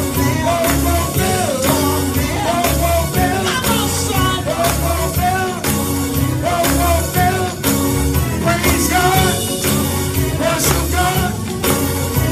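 Praise music with singing over a band, with a steady drum beat and strong bass.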